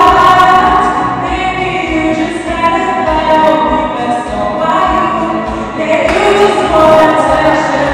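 A young man singing into a microphone, holding long notes and sliding between them.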